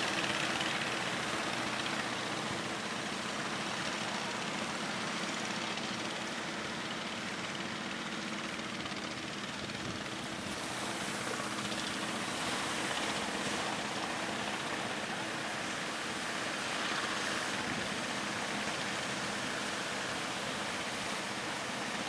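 Surf washing and breaking, with the steady hum of fishing boats' motors running as the outrigger boats head out through the waves.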